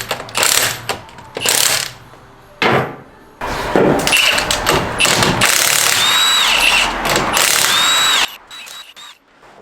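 Power tool running in several short bursts, then a longer stretch in which it twice spins up, holds and winds down near the end.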